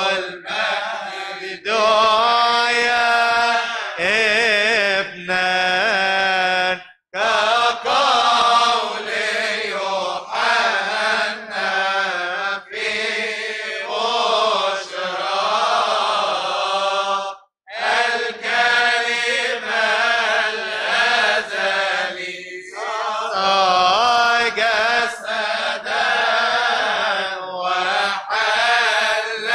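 A single man chanting an Arabic Coptic Orthodox Christmas hymn, a slow melismatic line of long wavering, ornamented notes. He breaks off for a breath twice.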